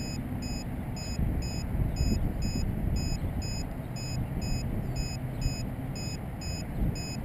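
Radio-control transmitter alarm beeping steadily, about two short high-pitched beeps a second, over wind rumble on the microphone.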